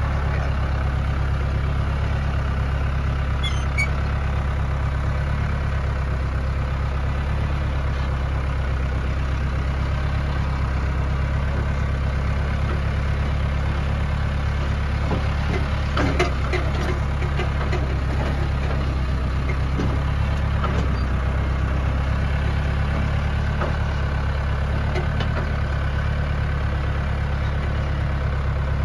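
John Deere tractor engine running steadily under load as it tows a dead Ford tractor on a chain, with a few rattles and clanks about 16 seconds in.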